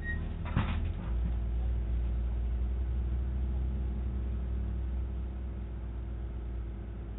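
A heavy engine running with a steady low rumble, heard through a doorbell camera's narrow-band microphone. A brief clatter comes about half a second in, and the rumble grows heavier just after.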